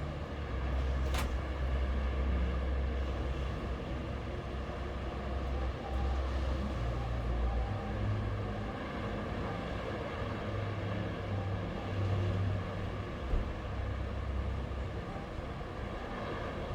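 Sea waves washing onto the shore: a steady rushing noise that swells and eases, with a deep rumble underneath.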